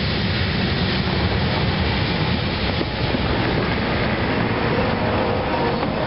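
Freight train cars rolling away along the track: a steady rolling noise of steel wheels on rail.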